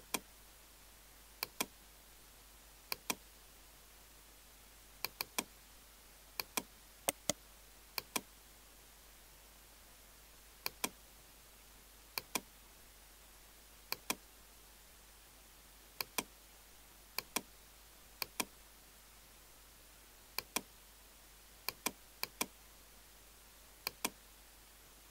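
Computer mouse button clicks: single clicks and quick double-clicks at irregular intervals, over a faint steady hiss.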